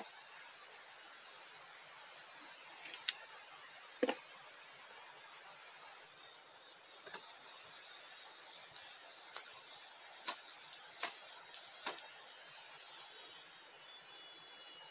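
Steady high-pitched chorus of forest insects, with a couple of light knocks a few seconds in and a quick run of sharp clicks about two-thirds of the way through.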